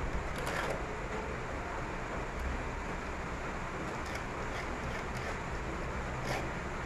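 Small hand file rasping on a metal key blank, taking the sharp edge off a freshly cut notch, over a steady hiss.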